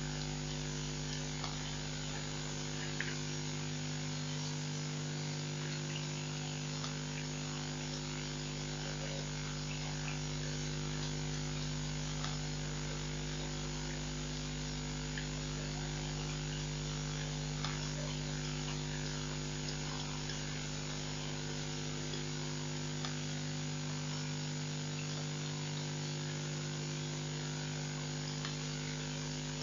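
Steady electrical mains hum with several constant tones over an even hiss, with a few faint scattered ticks.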